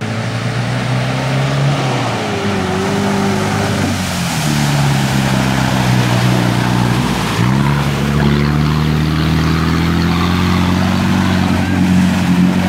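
Nissan 4x4's engine revving hard under load as it churns through a deep clay mud pit, with mud and water rushing and splashing. The engine note rises and falls, drops sharply about seven seconds in, then climbs again.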